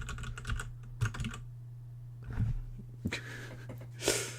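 Typing on a computer keyboard in short bursts of clicks, over a steady low electrical hum. A breathy rush near the end is the loudest sound.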